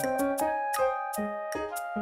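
Background music: a bright pop tune of keyboard notes over a light beat with crisp percussion hits several times a second.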